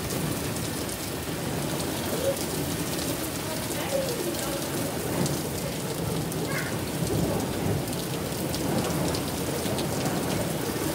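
Heavy rain pouring steadily in a thunderstorm, with many fine drop hits and a low rumble underneath.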